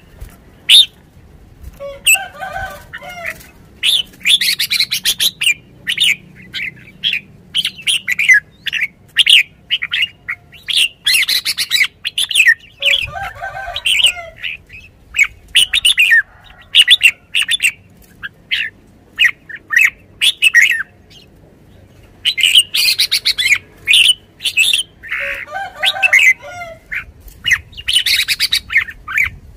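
Red-whiskered bulbul calling: quick series of short, sharp chirping notes, broken about every ten seconds by a fuller, lower warbled phrase.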